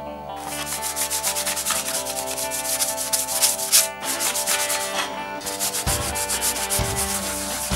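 Abrasive block rubbed back and forth over the steel blade of a hand plane, cleaning it during restoration: quick rasping strokes, about four a second, with a brief pause around four seconds in.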